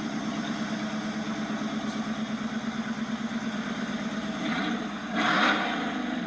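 2014 Dodge Charger Pursuit's 5.7L HEMI V8 idling with its exhaust open straight after the catalytic converters, no mufflers or resonators fitted: an even, pulsing exhaust note. It swells briefly louder about five seconds in.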